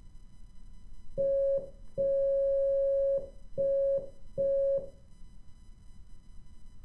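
Morse code tone keyed in four beeps, short, long, short, short: the letter L. It is a steady mid-pitched beep at a slow sending speed, with the dash about three times as long as the dots.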